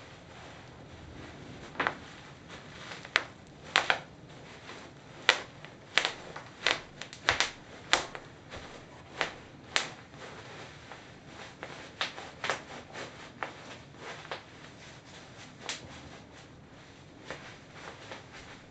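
Bubble wrap being trodden on in Birkenstock clogs: sharp, irregular pops of bursting bubbles over the crinkle of the plastic sheet. The pops come thickest in the first half and grow sparser towards the end.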